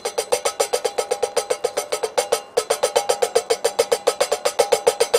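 Small plastic Tic Tac container shaken hard to get fatwood shavings out, clacking rapidly and evenly at about ten knocks a second, with one brief pause a little past two seconds in.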